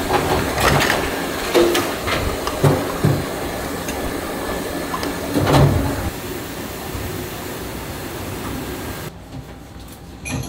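Steady kitchen noise around a lit gas range, with several light knocks as lids go onto lacquered soup bowls. About nine seconds in it drops to a quieter room background.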